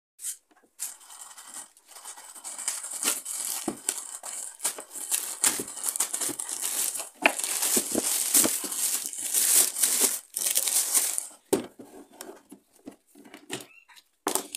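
Thin black plastic wrapping bag crinkling and rustling as it is pulled and stripped off a new plastic bin, with a few sharper knocks and clicks from the bin in the last few seconds.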